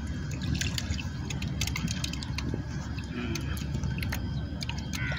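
Fish splashing at the surface as they feed on a floating piece of bread: many small, sharp splashes over a steady low rumble.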